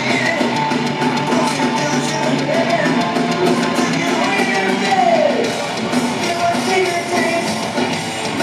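Thrash metal band playing live in an arena, heard from the audience: distorted electric guitars, bass guitar and drums, with a note sliding down about five seconds in.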